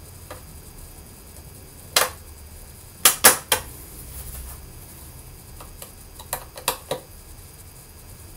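Sharp clicks and taps of a small screwdriver and its screws against a MacBook Pro's aluminium bottom case: one about two seconds in, three in quick succession around three seconds, then several softer ones later on.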